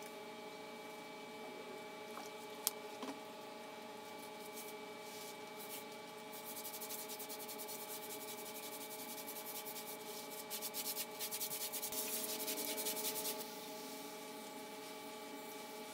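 A brush scrubbing a wet, soapy doormat in fast back-and-forth strokes. The strokes start about six seconds in, grow faster and louder, and stop about two seconds before the end. There is a single sharp knock about two and a half seconds in.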